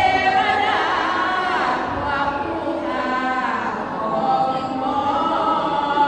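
Women's voices singing Sarapanya, the Thai-Isan Buddhist chanted verse, as an unaccompanied group: a slow melody of long held notes that slide from one pitch to the next.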